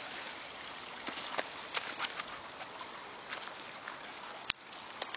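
Footsteps rustling and crackling through dry leaf litter and undergrowth, with one sharp click about four and a half seconds in.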